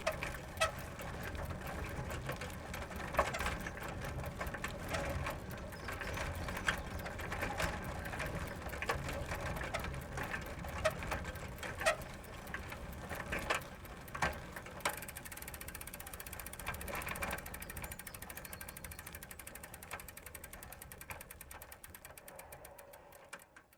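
Bicycle rolling slowly on gravel, its tyres crunching stones with scattered sharp clicks. About two-thirds of the way in, a rapid, even ticking from the rear freewheel joins in and fades away as the bike slows to a stop.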